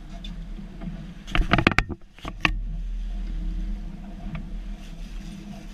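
Twin Honda four-stroke outboard motors running at low speed, a steady low hum. About a second and a half in comes a quick run of loud, sharp knocks and clatter.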